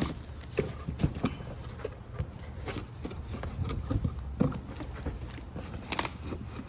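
A cardboard shipping box being opened and its contents handled: irregular clicks, knocks and scrapes of cardboard and packaging, the sharpest about six seconds in.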